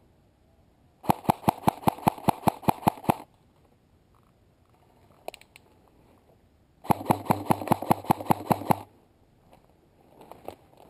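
Airsoft electric rifle firing two bursts of about two seconds each, a rapid, even string of shots over the whine of its motor and gearbox, with a few light clicks between them.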